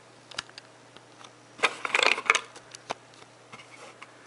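Plastic makeup tubes and pencils clicking and clattering against each other as they are handled in a small cardboard box, with a burst of rattling about two seconds in and a few single clicks around it.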